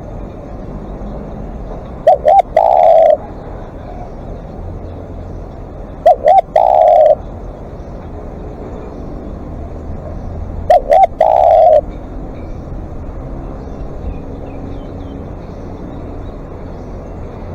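Spotted dove cooing: three calls about four seconds apart, each two short coos and then a longer held coo. A faint steady low rumble runs underneath.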